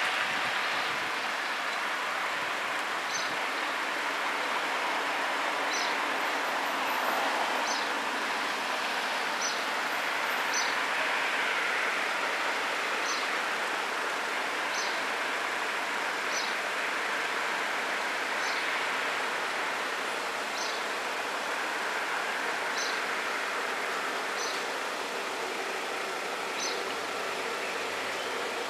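Steady outdoor background noise at a closed railway level crossing, with a faint short high tick every second or two.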